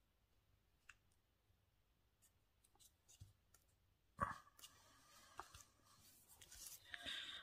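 Near silence with faint paper-handling sounds: scattered small clicks, a tap about four seconds in, and a short rustle of paper near the end.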